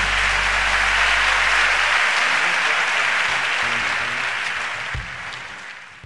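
Concert audience applauding at the end of a song, while a low held note from the orchestra dies away about two seconds in. The applause fades out near the end.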